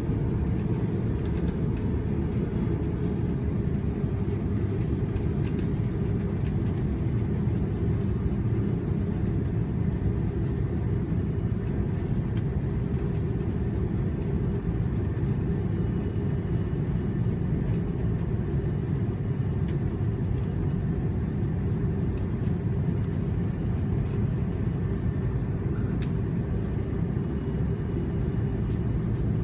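Airbus A330 cabin noise heard from a passenger seat: the steady low roar of its Rolls-Royce Trent 700 engines and the airflow, holding even with no rise or fall, as during the takeoff run or climb-out.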